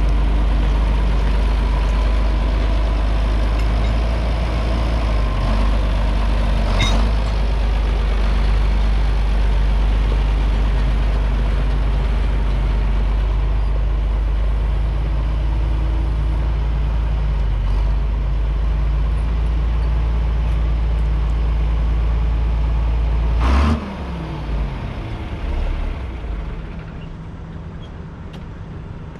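Truck engine running with a steady low drone, then shut off about three-quarters of the way in: a click, then a whine that falls in pitch as it winds down.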